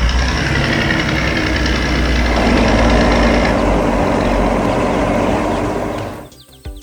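Heavy construction vehicle's engine running loudly with a deep rumble, dying away about six seconds in.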